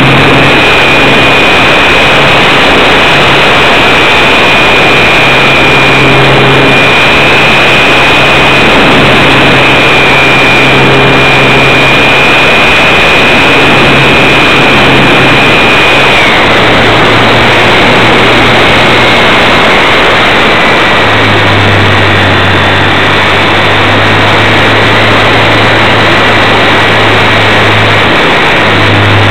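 Electric motor and propeller of a Hobbyzone Super Cub RC plane whining steadily in flight, heard from a camera on the plane under loud wind rush. About halfway through, the whine drops a little in pitch.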